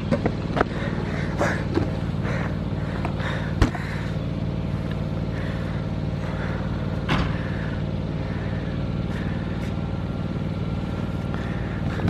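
A steady low mechanical hum runs throughout, with a few scattered clicks and one sharper knock about three and a half seconds in.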